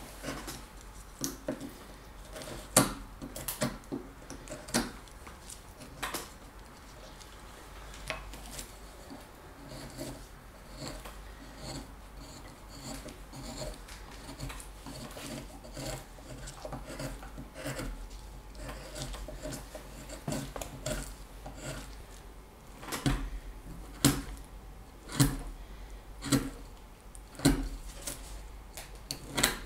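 Carving knife whittling a block of wood: scraping cuts with sharp clicks as each stroke finishes. The clicks come about once a second near the end.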